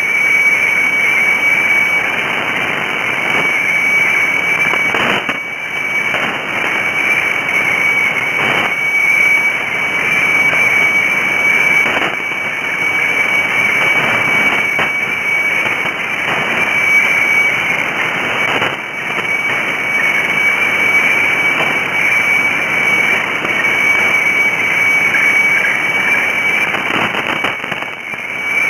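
Shortwave weather-fax (radiofax) signal from the Bangkok HSW64 meteofax station on 7395 kHz: a steady high whistling tone over a constant hiss of band static. The tone wavers and dips lower briefly near the end.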